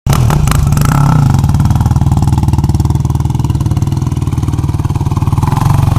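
2004 Yamaha YFZ450 quad's single-cylinder four-stroke engine running close by, a steady fast chug of firing pulses with little change in pitch.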